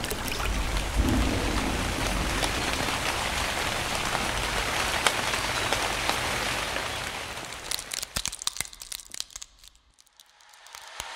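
Rain falling steadily, thinning about eight seconds in to scattered single drips, then dying away almost to silence.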